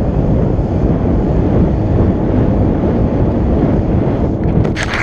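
Wind buffeting the microphone over the rumble of small pennyboard wheels rolling fast down steep asphalt. Near the end a brief, harsher rasp cuts in.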